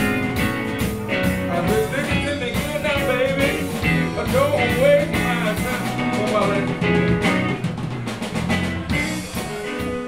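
Blues music: an electric guitar plays a lead with bent, wavering notes over a drum kit.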